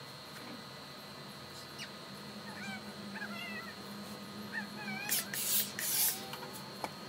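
Steam iron letting out two short, loud hisses of steam about five and six seconds in. Before them come faint wavering animal calls, over a steady high whine.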